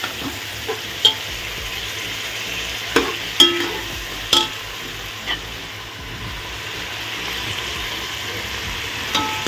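Vegetables sizzling as they fry in oil in a metal pot, stirred with a metal ladle that knocks and scrapes against the pot a few times, about one, three and four seconds in.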